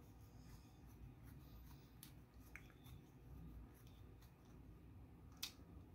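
Near silence with faint scraping and a few small clicks: a small screwdriver turning a 3 mm by 12 mm machine screw into a 3D-printed plastic case, the screw cutting its own thread.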